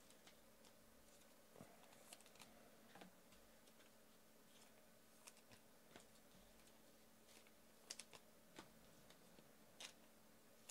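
Near silence with a faint steady hum and scattered light clicks and taps, about a dozen, spread unevenly, a few close together a little after the middle.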